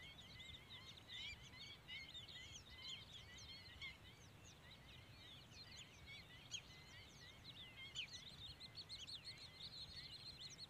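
Faint chorus of many birds calling: high-pitched chirps overlapping densely and continuously, over a low background rumble.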